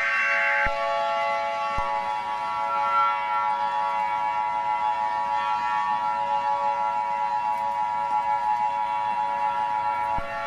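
Emergency Alert System tones: a short burst of the screechy digital header data tones ends within the first second. Then a steady, harsh attention-signal tone runs for about eight seconds and cuts off just before the end.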